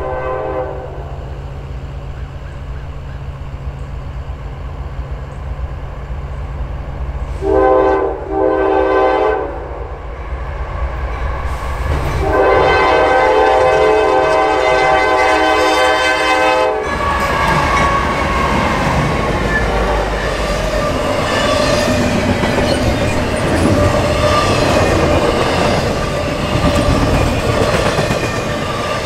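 Diesel freight locomotive air horn blowing for a grade crossing: a blast dies away just after the start, two blasts come about a third of the way in, and a long blast is held through the middle, over the low running of the approaching diesel engines. After that the Norfolk Southern GE AC44C6M locomotives and double-stacked intermodal container cars pass close by, their steel wheels clattering over the rail joints.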